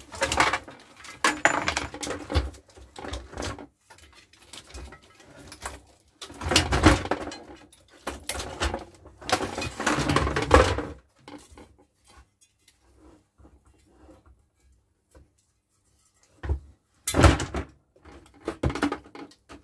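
Clattering, knocking and rustling of a CRT monitor's chassis and circuit boards being handled and pulled apart to free the picture tube. It comes in irregular bursts, with a quiet spell of a few seconds near the end before more knocks.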